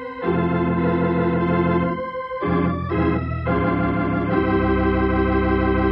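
Organ music: sustained chords that change several times, then settle on one long held chord.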